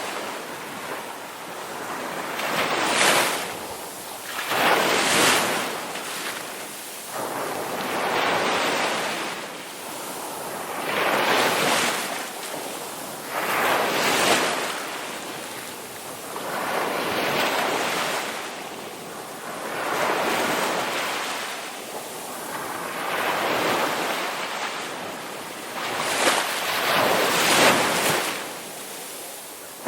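Ocean surf: waves crashing and washing in, a surge of rushing water noise every two to three seconds that rises and falls away.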